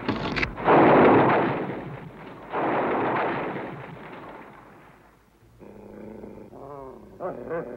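A big dog growling: two loud, rough growls, each about a second and a half long. Soft music with a wavering tone comes in near the end.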